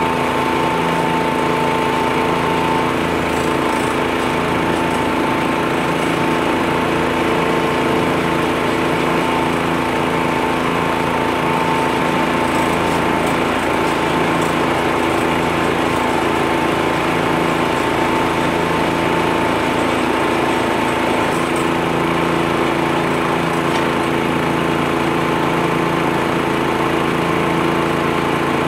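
U-Mount tractor leaf blower with its 14-horsepower engine running steadily at full speed, its fan pushing a rushing blast of air through leaves, with the compact tractor's engine underneath.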